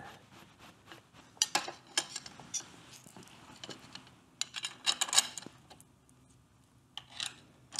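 Light metallic clicks and clinks of a metal number plate and its mounting hardware being handled and fitted onto a motorcycle's front end, scattered, with the busiest run of clinks about halfway through.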